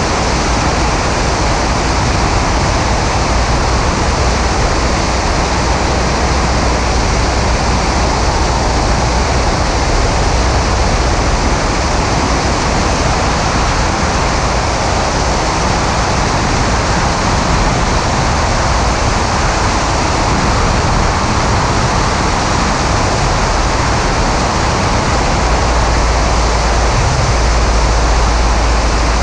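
Steady rush of airflow buffeting a camera mounted outside on the wing of a Maule M5-180C in flight, with its 180-hp Lycoming four-cylinder engine and propeller running under it at cruise. The low wind rumble swells near the end.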